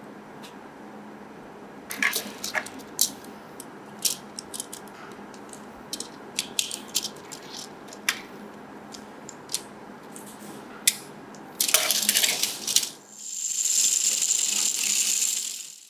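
Hard plastic Tamiya Mini 4WD kit parts clicking and tapping as the body shell and small parts are pressed onto the chassis by hand, in scattered clicks with a dense flurry about twelve seconds in. For the last two seconds or so, a steady high-pitched whir.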